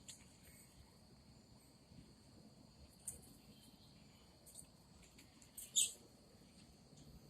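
A few short, high bird chirps, the loudest about six seconds in, over a faint, steady, high-pitched hum.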